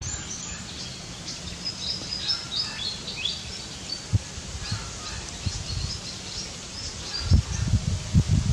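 Small birds chirping in the background over a steady low rumble; near the end, a run of louder low rustling thumps.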